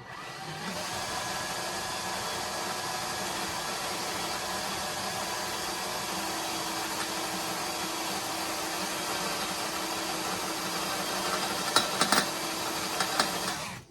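Electric drill running steadily, its bit boring into a broken bolt to deepen the hole for an easy out. A few sharp clicks near the end, then the drill stops suddenly.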